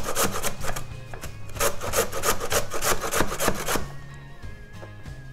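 Raw beetroot being grated on the coarse side of a stainless-steel box grater: quick repeated strokes, several a second, that stop about four seconds in. Background music plays underneath.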